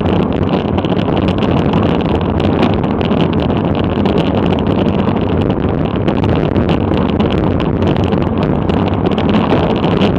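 Wind rushing over the microphone of a bicycle-mounted action camera at racing speed: a steady, loud rush with frequent short crackles.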